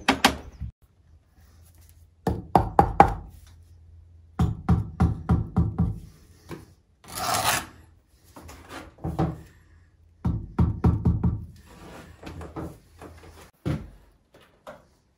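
Bricks being set in mortar for a fireplace: several bursts of quick, sharp knocks against brick, with one scraping sound about halfway through. A low steady hum runs underneath and stops about ten seconds in.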